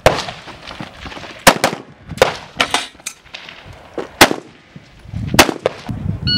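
Semi-automatic AR-style rifle firing single shots at an uneven pace, about seven in all, in a 3-gun match stage.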